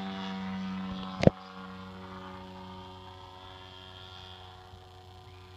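Piston engine and propeller of a large-scale RC airplane in flight: a steady drone that fades as the plane flies off. A sharp click about a second in is the loudest sound.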